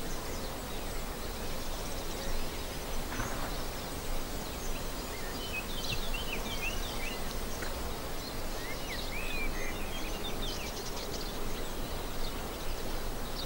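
Birds chirping faintly in short clusters over a steady outdoor hiss of ambience, the chirps coming in the middle of the stretch, with a brief high trill a little later.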